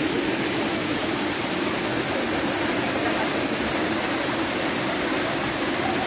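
Small waterfall pouring into a shallow rocky pool: a steady, unbroken rush of water.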